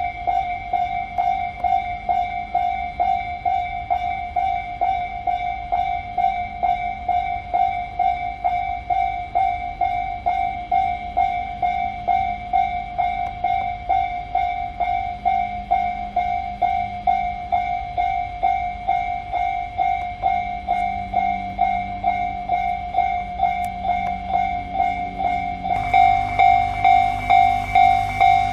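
Japanese railway level-crossing warning bell ringing: a steady electronic ding repeating about two to three times a second. Near the end it grows louder and a train's low running noise joins in.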